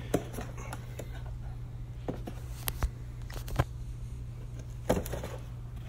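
Steady low hum with a handful of light clicks and knocks scattered through it: handling noise.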